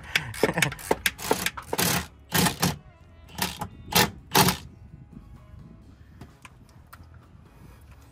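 Cordless impact wrench hammering on transmission bolts in four short bursts, starting about two and a half seconds in and ending before five seconds. Before the bursts come a quick run of sharp metallic clicks from hand tools on the bolts.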